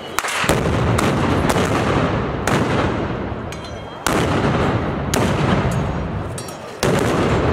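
Blank gunpowder shots from festival blunderbusses going off one after another, loud sharp blasts that echo and die away slowly; the biggest come about a quarter second in, about four seconds in, and near the end.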